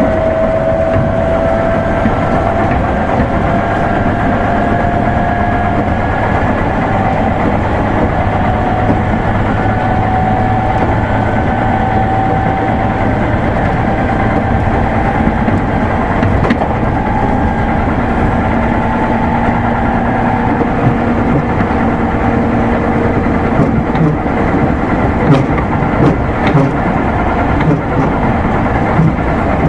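Running sound of a 205 series electric commuter train: a steady rumble of wheels on rail with a whine that rises slowly for about the first ten seconds as the train gathers speed, then holds. Several sharp knocks come in the last few seconds.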